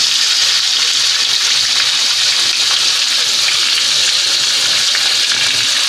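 Pieces of marinated fish deep-frying in hot oil in a wok, giving a loud, steady sizzle.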